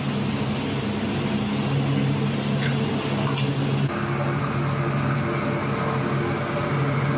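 Steady drone of commercial kitchen equipment, with an egg frying in oil in a non-stick wok over a gas burner; a couple of light clicks about three seconds in.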